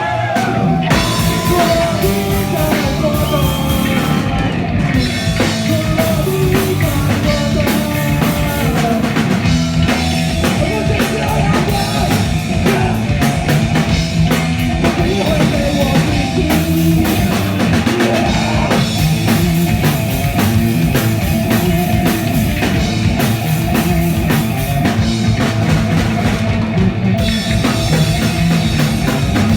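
Punk rock band playing live: fast, steady drum kit beat with distorted electric guitar and bass, and shouted vocals.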